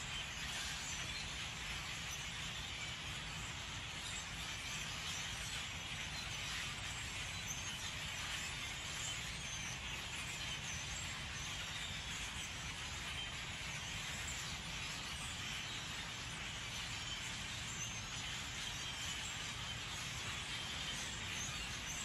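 Steady chatter of a large flock of migrating birds, many calls overlapping into one continuous din, over a low steady rumble.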